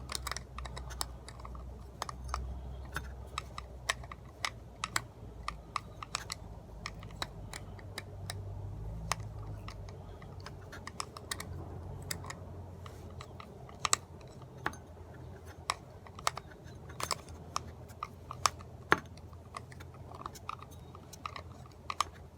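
Irregular light clicks and taps of a small screw being turned in by hand with a hand tool, with parts handled between turns, over a faint low hum.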